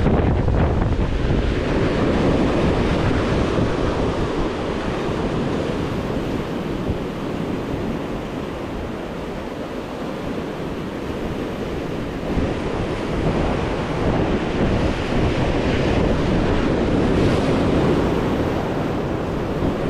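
Sea waves surging against the shore, with wind buffeting the microphone. A steady rushing noise that eases a little midway and swells again.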